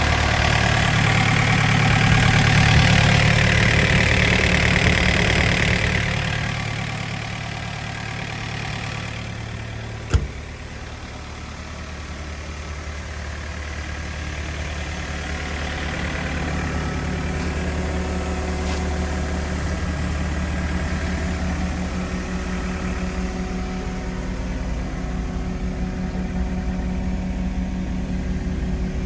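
Takeuchi TB260 excavator's diesel engine running, louder for the first six seconds or so, then settling to a steady idle. One sharp click comes about ten seconds in.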